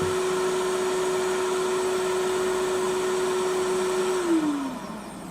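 Hot air rework station blowing with a steady whir and hum, then switched off about four seconds in, its fan pitch sliding down as it spins to a stop.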